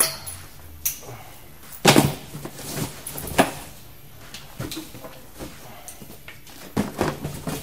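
Belongings being handled and dropped into cardboard boxes: irregular knocks, thuds and rustles, the loudest about two seconds in, another about a second later, and a cluster near the end.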